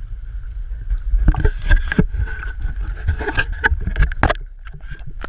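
Sea water sloshing and splashing close to the microphone over a low rumble of water and wind, the splashes coming irregularly from about a second in and easing near the end.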